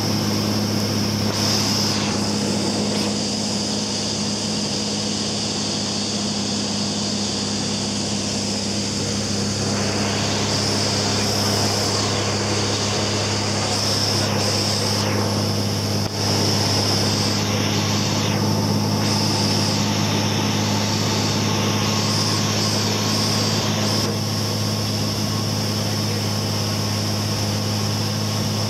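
Single-engine Cessna's piston engine and propeller running steadily in flight, heard inside the cabin.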